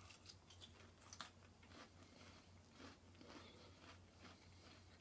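Faint crunches of a McVitie's Digestives Thin, a very thin milk-chocolate-covered digestive biscuit, being bitten and chewed, with one sharper crunch about a second in.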